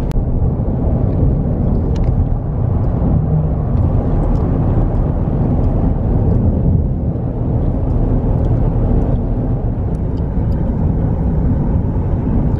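Steady road noise inside a car cabin at highway speed: tyre and engine noise with no pauses.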